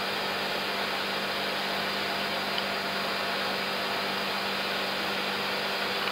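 Steady flight-deck noise of an Airbus A330-300 climbing out at climb thrust: an even rush of airflow and engine noise with a constant low hum.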